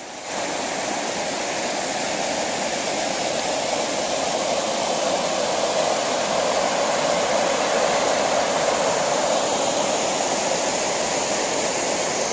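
River water rushing over a weir and rocks: a steady, even rush of white water.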